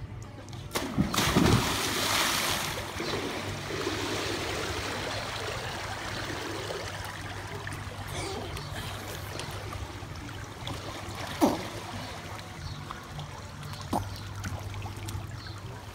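Big splash as several people jump into a swimming pool about a second in, followed by steady splashing and lapping water as they swim. A short sharp sound stands out about three-quarters of the way through.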